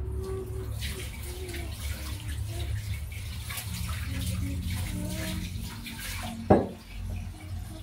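Mihun soup in a pot being stirred: liquid sloshing with small clinks of the utensil. There is one sharp knock about six and a half seconds in.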